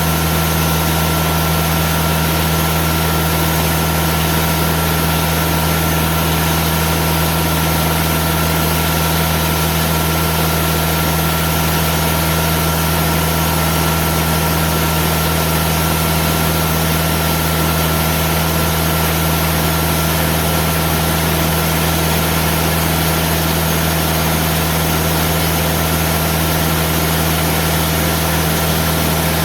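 The diesel engine of a Timberking wide-cut band sawmill runs steadily under load as the band blade cuts very slowly through hard, aged live oak. The hum and hiss stay even, with no change in pitch.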